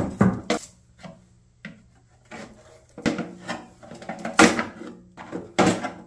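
Plastic and metal parts of a wood chipper's housing being worked loose by hand: a string of knocks, scrapes and rattles, sparse at first and busier in the second half, with a loud knock near the end.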